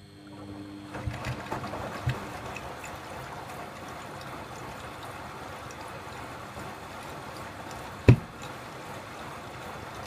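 Beko front-loading washing machine on its rinse: water sloshing and trickling in the turning drum, starting up about half a second in and then running steadily. There are a few knocks in the first two seconds and one sharp thump about eight seconds in.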